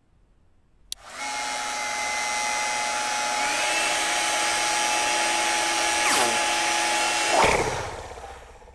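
A hair dryer clicks on about a second in and runs with a steady whirring blow and a thin whine. Near the end it swells briefly, then winds down with a falling pitch and fades out.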